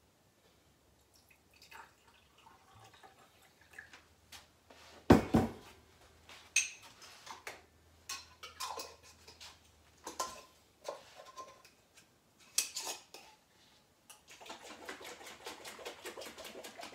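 Glass mason jars knocking and clinking as honey is rinsed out of them with water, with one loud knock about five seconds in. Over the last few seconds there is a steady wash of water.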